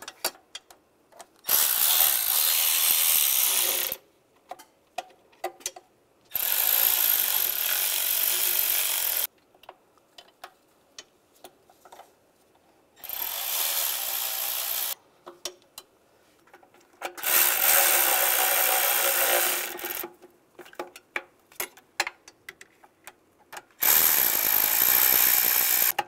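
Handheld power driver running intake manifold bolts down snug in five short bursts of two to three seconds each, with small clicks of the socket and bolts between bursts.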